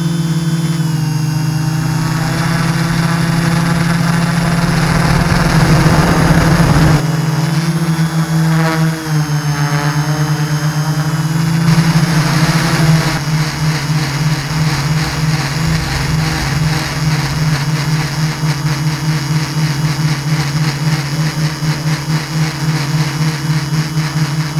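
Multirotor drone's electric motors and propellers droning steadily, heard through the camera mounted on the drone. A noisy rush over the drone hum cuts off suddenly about seven seconds in, and from about halfway the drone takes on a rapid pulsing.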